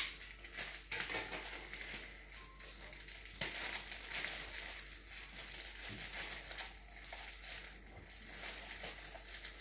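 Plastic wrapper of a packet of wholegrain toasts crinkling and crackling in irregular bursts as it is pulled and twisted by hand, in an effort to get the stubbornly sealed packet open.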